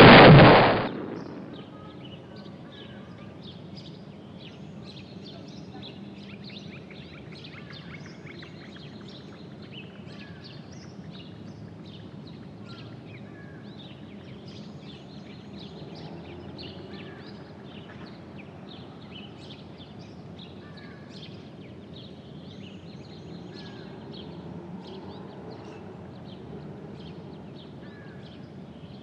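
A loud crash as a falling tree trunk smashes down onto a small Fiat 500 car, dying away within about a second. Then a steady low outdoor ambience with many small birds chirping and twittering throughout.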